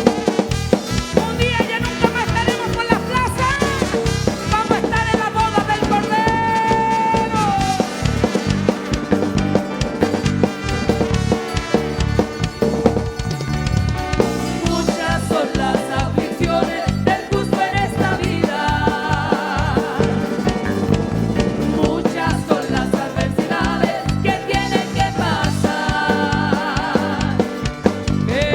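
Live church band playing an upbeat song: drum kit and bass driving a steady beat, with voices singing over it, heard as the musicians' in-ear monitor mix.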